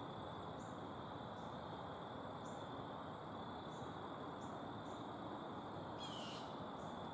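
Insects trilling: a steady high-pitched drone, with a higher chirp repeating about once a second, over a soft hiss. A short, falling call comes about six seconds in.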